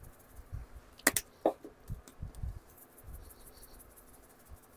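Dried oregano and basil shaken from spice jars over a bowl of pasta salad: faint, irregular rattling ticks, with two sharp clicks a little over a second in and soft handling thuds.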